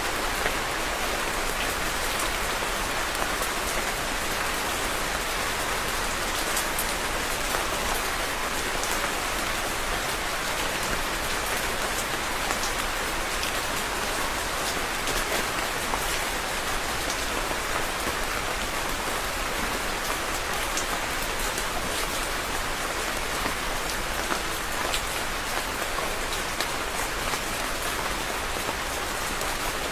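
Steady rain falling, a continuous hiss of drops with many small individual drop ticks.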